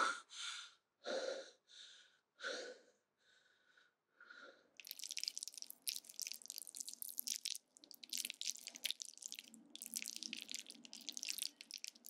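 A woman panting in short, ragged breaths, about one every half second, for the first few seconds. From about five seconds in, wet squelching and slurping as sauce-covered spaghetti is twirled and worked on a fork.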